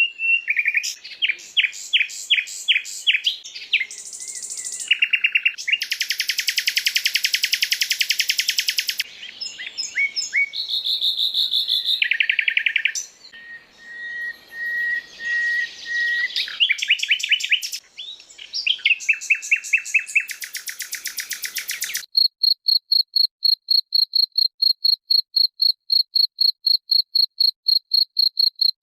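Spliced recordings of songbird calls: fast trills, rapid repeated chirps and short whistled notes, switching abruptly every second or two. Over the last several seconds a single steady, high, pulsed trill repeats at about four to five pulses a second, sounding almost like an insect.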